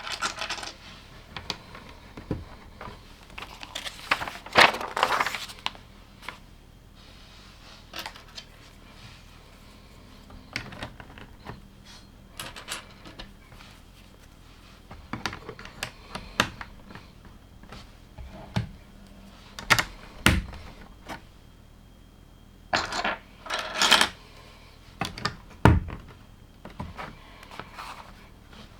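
LEGO plastic bricks being handled and snapped together: irregular sharp clicks and light clatters of small pieces. There is a louder rattling clatter of loose pieces being sorted about four seconds in and again past the twenty-second mark, and a few dull knocks on the table.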